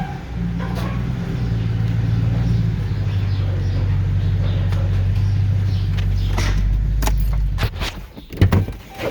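Four-wheel-drive truck engine running steadily under load, then stopping about seven and a half seconds in, followed by a few sharp knocks and clunks.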